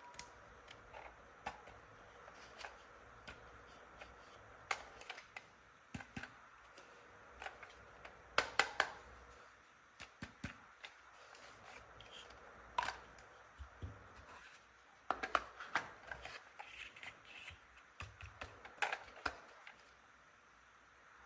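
Plastic toy hairdressing pieces and their packaging being handled: scattered light clicks, taps and rustles, with a quick cluster of sharper clicks about a third of the way in.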